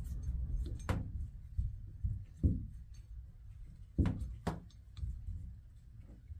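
A few sharp clicks and knocks from hands working a chrome Moen shower valve handle, its set screw just tightened and the handle being checked for play, over low handling rumble. Two of the knocks come close together about four seconds in.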